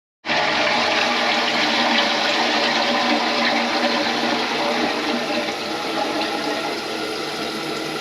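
Toilet with a TOTO S517Br tank flushing: a loud rush of water that starts sharply just after the start and runs on steadily, slowly easing off.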